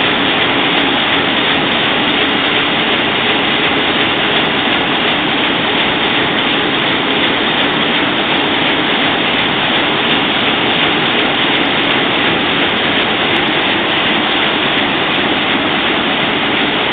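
Six-colour Roland 706 sheetfed offset press running in production: a loud, steady, even machine noise with no let-up.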